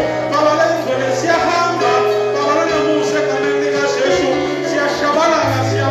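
Church worship music: singing over long held bass notes that change pitch every few seconds.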